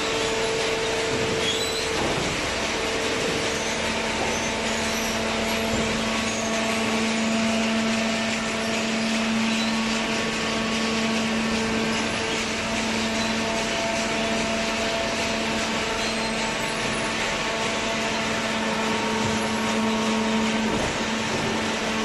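Cardboard baling machinery running: a steady machine hum, a constant low drone over an even whirring noise.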